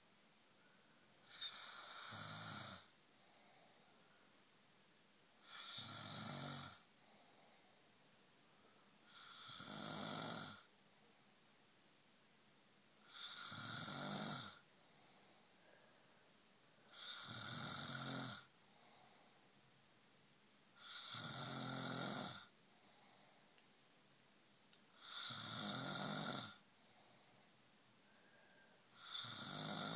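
A man snoring in his sleep: regular snores about every four seconds, each lasting about a second and a half.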